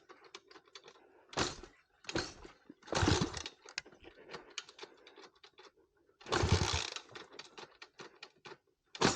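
A stalled monkey bike being restarted: several separate thunks and scrapes from the start attempts, with small clicks between them, the engine not yet catching.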